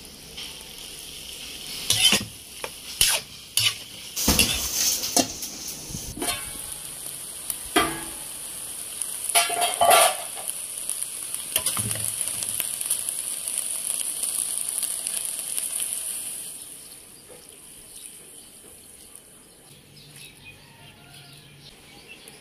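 Diced pork frying in a wok, stirred with a metal spatula that scrapes and clanks against the pan over a steady high sizzle. The sizzle drops away about two-thirds of the way through.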